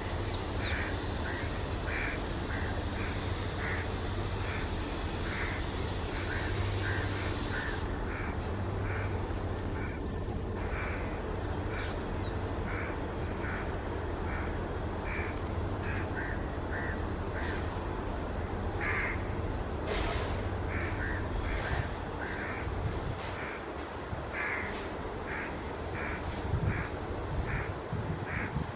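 Crows cawing repeatedly, about one or two calls a second, over a steady low rumble from the train. A high hiss under the calls cuts off about eight seconds in, and the rumble eases off near the end.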